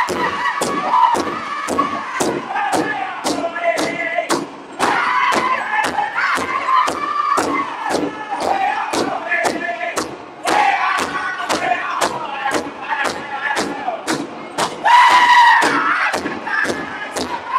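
Northern-style powwow drum group singing high-pitched in chorus over a large powwow drum struck in unison, about three beats a second. The voices swell loudest near the end.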